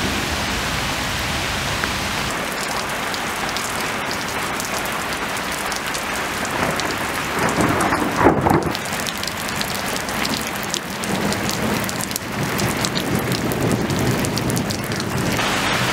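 Heavy rain falling steadily on wet paving stones, puddles and lake water, a dense hiss full of separate drop splashes. The rain grows heavier, with a louder swell about eight seconds in.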